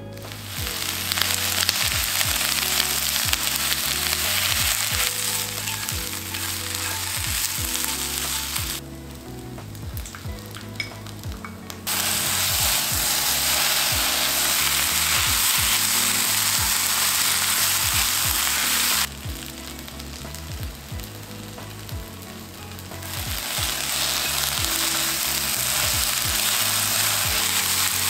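Fish cake strips and onion stir-frying in oil with a red-pepper seasoning in a nonstick pan, sizzling steadily as chopsticks toss them. The sizzle drops away twice for a few seconds, about a third of the way in and again past the middle.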